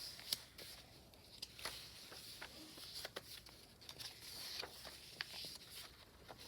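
Paper rustling and light clicks as the pages of a large handmade journal are turned and handled, with a sharp click shortly after the start.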